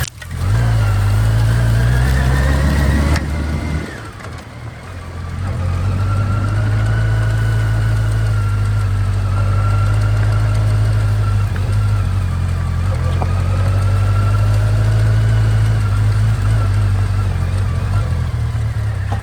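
Motorcycle engine running on the road. It revs up over the first few seconds, eases off about three seconds in, then settles into a steady cruise.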